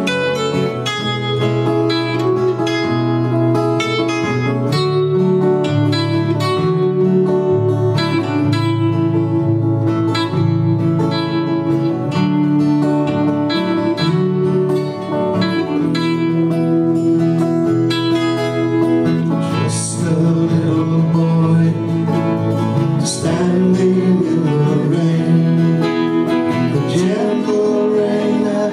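Two acoustic guitars playing together: a picked melody over strummed chords, with a steady run of plucked notes.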